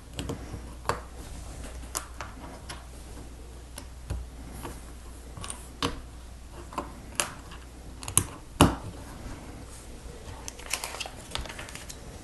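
Lego bricks clicking and snapping together by hand, with sharp irregular clicks spaced about a second apart and a couple of louder snaps a little past the middle.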